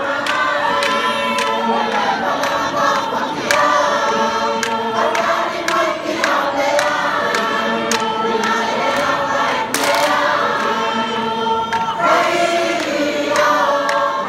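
A large group of men and women singing a Tongan lakalaka together, unaccompanied, in held, chord-like choral lines.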